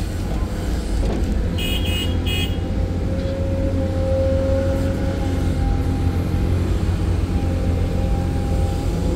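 Excavator's diesel engine running steadily under load, heard from the operator's seat, with three short high beeps about two seconds in.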